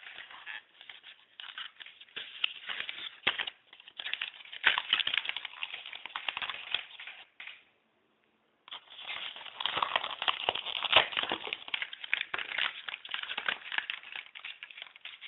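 Webcam packaging crinkling and crackling as it is handled and pulled apart to free the camera, a fast irregular run of rustles and crackles that cuts out completely for about a second just past the middle.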